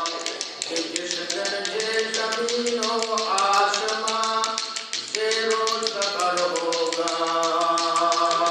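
A single voice singing a slow devotional chant in long held notes that glide from pitch to pitch, breaking off briefly about five seconds in. A steady rapid ticking runs under it.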